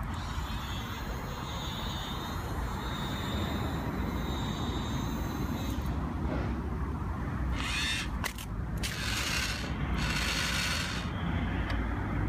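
Dickie Toys Mega Crane's electric motor and plastic gearing whirring as the remote-controlled tower crane swings a plastic pipe on its hook. It carries a thin steady whine for the first half, then goes on in noisier stretches later.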